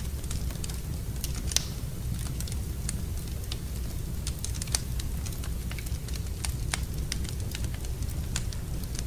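Wood fire burning in a fireplace: a steady low rumble with irregular sharp crackles and pops, two of them louder, about a second and a half in and near five seconds.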